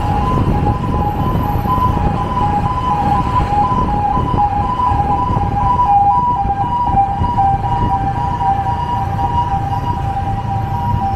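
Road and engine noise while riding pillion on a motorcycle taxi in city traffic, with a steady two-note whine held throughout that neither rises nor falls.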